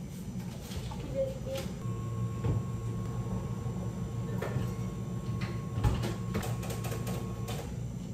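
Behind-the-counter cafe work sounds: a machine runs with a steady hum and a thin high whine from about two seconds in until near the end, while cups, jugs and utensils knock and clink, more often in the second half.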